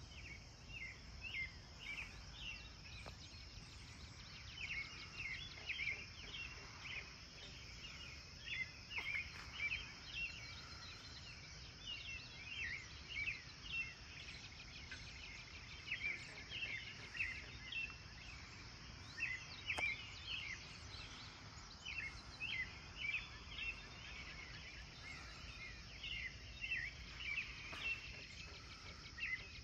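Birds chirping in quick clusters of short, high calls over a steady high drone of crickets, with a faint low rumble underneath.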